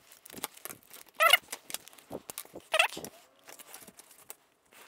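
Tools being handled and set down on a sheet of glass at a workbench: scattered light clicks and taps, with two short squeaks, about a second in and near three seconds.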